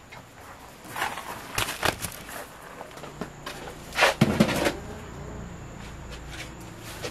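Woven bamboo basket being handled and lifted off the wall: rustling and knocks, with a louder clatter about four seconds in.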